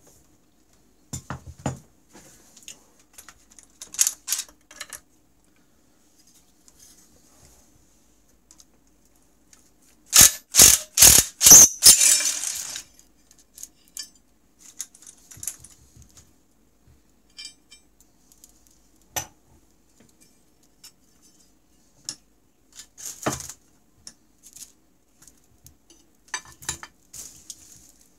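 Metal clinks and knocks of tools and engine parts being handled, with a cordless impact driver run in about five short, loud bursts around ten seconds in.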